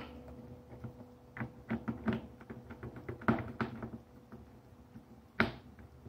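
Small clicks and taps of a stiff insulated wire and the plastic terminal block of a Siemens Sirius timer relay being handled as the wire is pushed into a terminal: a run of quick clicks in the middle and one sharper click near the end, over a faint steady hum.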